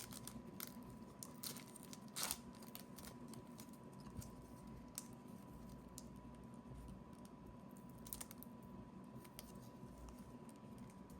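Faint handling of trading cards and pack wrapper: scattered soft clicks and rustles, with a sharper click about two seconds in. A faint steady tone runs underneath.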